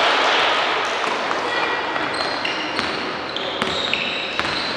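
Basketball game on court: the ball bouncing and many short high squeaks from sneakers on the floor, over a steady background of voices in the hall.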